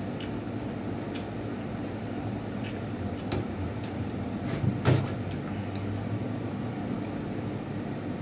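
Scattered small clicks and knocks of eating and handling food over a steady low hum, with one louder knock about five seconds in.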